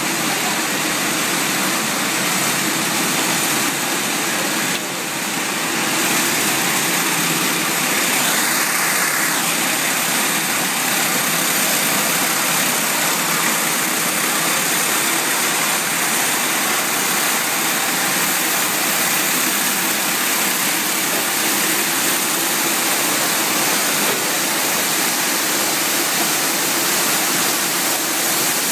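Heesemann UKP 22 profile sanding machine running: a steady, dense whir of its motors and sanding units, with a short higher-pitched tone about eight seconds in.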